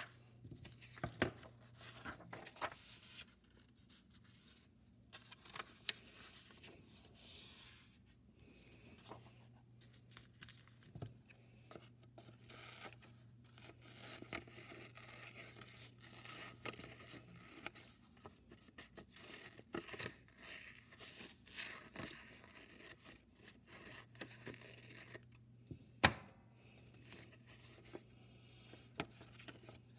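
Scissors snipping through folded construction paper, with the paper rustling as it is turned and handled. A single sharp click near the end is the loudest sound.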